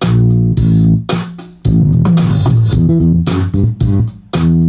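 Music from an MP3 player playing loud through a NAD 7020 stereo receiver: a track with bass guitar, guitar and a steady drum beat. It plays clean and undistorted, the receiver working again now that the shorted capacitor C807 in its preamp supply has been replaced.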